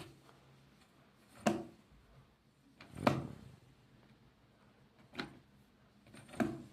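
A series of separate soft knocks or clunks, each with a short tail, about one to two seconds apart, over a quiet background.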